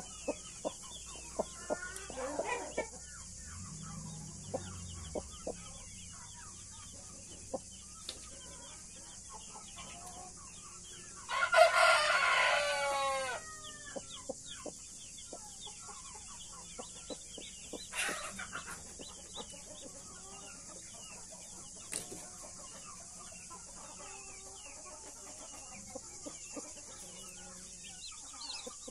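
Australorp and Brahma chicks peeping continually around a broody hen, with occasional chicken calls. A rooster crows once, loudly, about eleven seconds in. A steady high hiss runs underneath.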